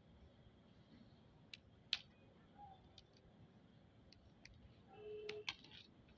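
Near silence broken by scattered faint, sharp clicks and ticks. The loudest comes about two seconds in, and a few more fall close together near the end.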